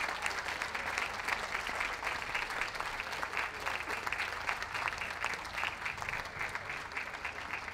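Audience applauding: a steady patter of many hands clapping that eases off slightly toward the end.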